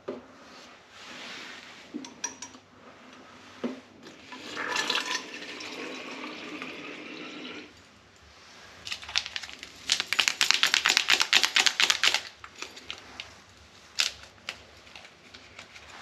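Plastic cycling water bottles being filled and handled at a kitchen sink: water runs for about three seconds, then comes a louder burst of rapid rattling clicks lasting about three seconds, and a single sharp click.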